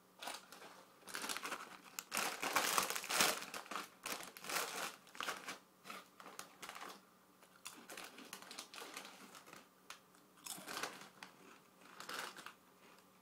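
Seabrook crisp packet crinkling and rustling as it is handled and pulled open, in irregular bursts that are loudest about two to three and a half seconds in, with a few more crinkles near the end.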